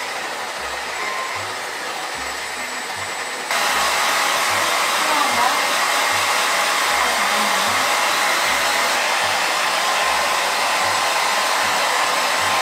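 Handheld hair dryer running steadily, blowing on a dog's coat; the rush of air gets louder about three and a half seconds in.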